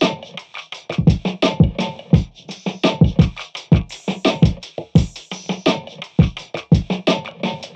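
Electronic background music with a steady drum-machine beat and turntable-style scratching.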